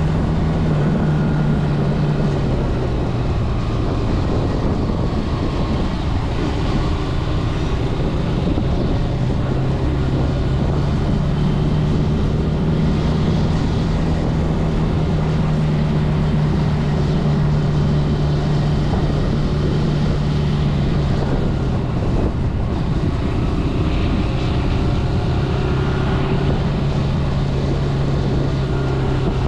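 Zontes C125 125cc motorcycle engine running at steady riding revs, its note dipping and rising slightly a few times with the throttle, over steady wind and road noise.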